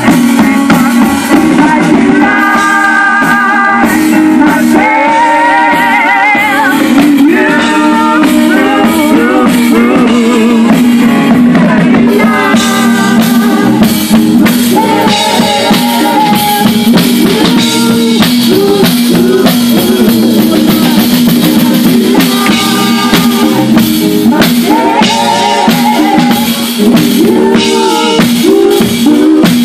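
Live worship band playing: women singing into microphones over keyboard and drums.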